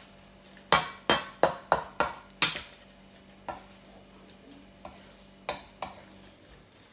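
Metal spoon clinking against a small ceramic bowl while stirring sauce, six quick sharp clinks in the first two and a half seconds, then a few scattered clinks of a metal utensil against a stainless steel steamer pot.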